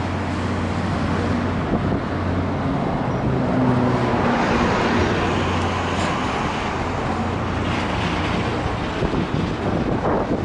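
A passing train: a steady low engine drone under a rolling rumble that swells about four seconds in.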